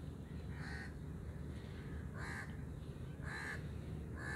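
Crows cawing, about four short caws spaced roughly a second apart, over a steady low background hum.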